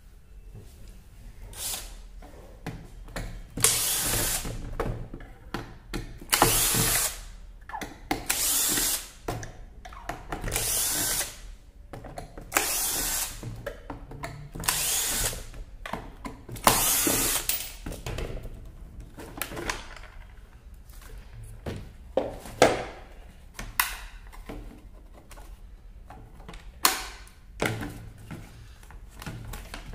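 Cordless drill/driver unscrewing the screws of a plastic pressure-washer housing, run in repeated short spurts of about a second each, then shorter bursts and sharp knocks.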